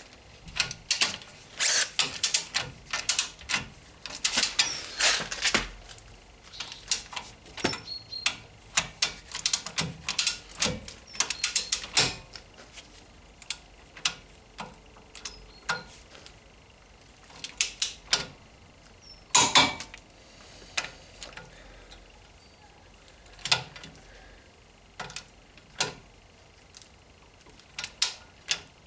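Ratchet of a torque wrench clicking in short irregular runs as the brake caliper bracket bolts are tightened to torque, with metal clinks of the wrench and socket being handled.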